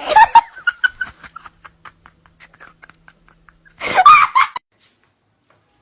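A person laughing: a loud burst of laughter that breaks into short fading pulses, then another loud burst about four seconds in.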